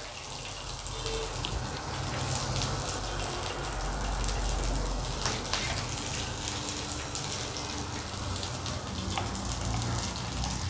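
Green chillies, peanuts and garlic sizzling in a little hot oil on a tawa, a steady frying sizzle with scattered small crackles.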